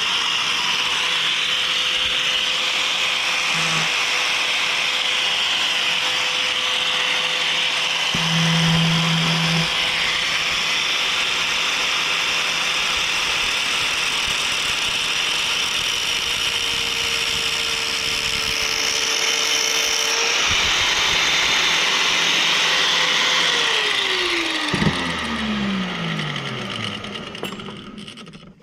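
Electric grinder cutting through the end of a wire rigging cable, the motor running steadily with the hiss of the disc on metal. Near the end it is switched off and the motor winds down, the pitch falling away.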